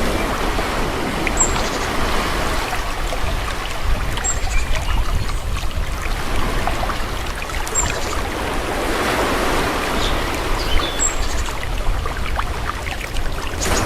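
Calm sea: small waves washing in and out with a steady rushing hiss that swells and eases, and a few short high bird chirps over it.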